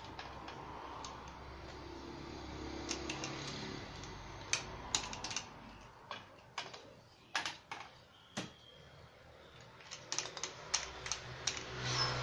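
Irregular sharp clicks and knocks of hard parts being handled: a golf driver head and metal tools tapping and seating against a workshop clamping fixture.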